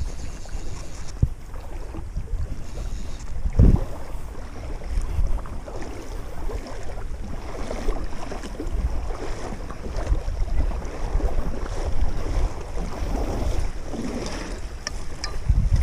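Wind buffeting the microphone in low gusty rumbles over the wash of lake water around a wading angler, with one dull bump about three and a half seconds in.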